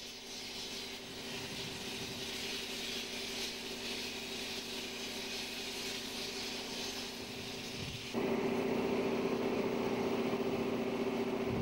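Steady mechanical hum of two low tones under a hiss, stepping up in loudness about eight seconds in.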